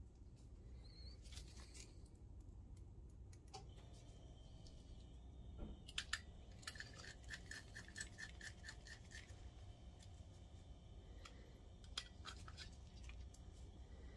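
Faint clicks and scraping as a projector lamp module's plastic housing and bulb are handled and worked with a small screwdriver, with a short run of light ticks, about four a second, midway.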